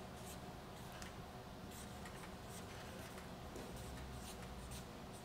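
Felt-tip marker writing on flip-chart paper: faint, short scratching strokes of the tip on the paper, over a low steady room hum.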